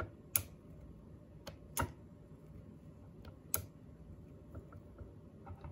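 Small scissors clicking and snipping as the blades nick the insulation of a speaker wire: four sharp clicks at uneven intervals, then a few faint ticks.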